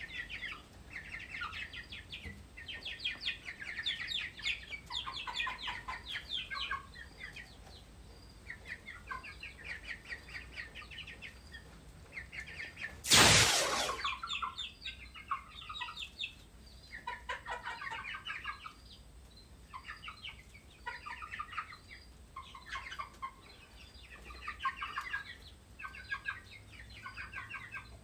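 Chickens clucking in short runs of quick, repeated notes throughout. About 13 seconds in there is one loud, brief, noisy burst.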